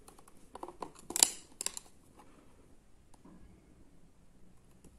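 Plastic case of a Rimmel eyeshadow palette being picked up and handled: a handful of light plastic clicks and knocks between about half a second and two seconds in, the sharpest just past one second, followed by faint handling sounds.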